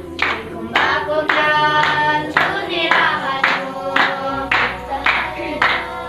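Group of children singing a Nepali devotional bhajan to steady hand-clapping, about two claps a second. The voices come in strongly about a second in and drop back about four seconds in, while the clapping keeps time.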